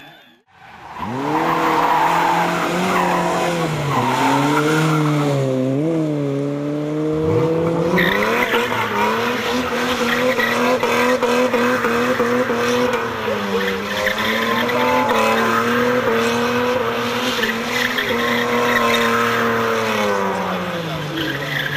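Rally car engine running hard at high revs, its pitch dipping and rising with gear changes and throttle lifts, with tyre noise and skidding underneath.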